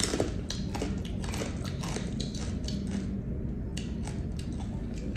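Close-up eating sounds of balut and chicharon: chewing with many small, irregular crunches and clicks.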